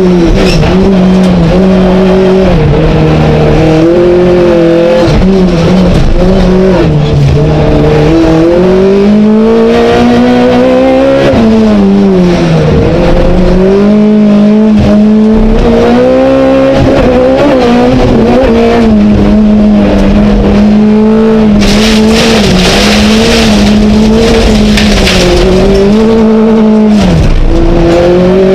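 Skoda Fabia Super1600 rallycross car's engine heard from inside the cockpit, revving hard and repeatedly climbing and dropping in pitch as the driver shifts up under acceleration and down for corners. A rush of tyre and track hiss rises over it for a few seconds about three-quarters of the way through.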